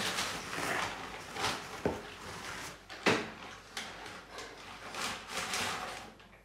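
Clear plastic bag crinkling and rustling as a heavy metal limited-slip differential is pulled out of it. Two sharp knocks sound about two and three seconds in, the second the loudest.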